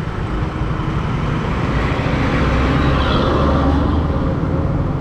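Traffic noise heard from a moving vehicle: a steady engine drone and road noise, with a low, uneven rumble of wind on the microphone.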